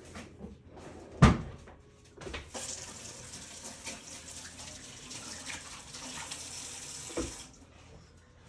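Water running from a tap for about five seconds and then turned off, with a sharp knock about a second in and another as the water stops.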